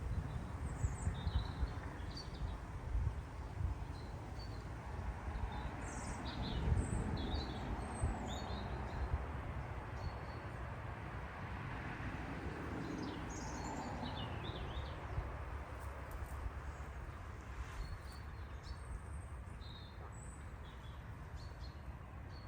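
Small birds calling in short, scattered high chirps over a steady low rumble of background noise, with irregular low thumps in the first several seconds.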